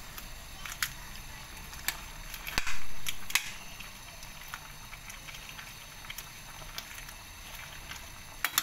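Metal ladle clinking and scraping against a stainless steel soup pot while cabbage is stirred in, a few sharp clinks with the loudest about two and a half seconds in, ringing briefly. A steady low hiss lies underneath.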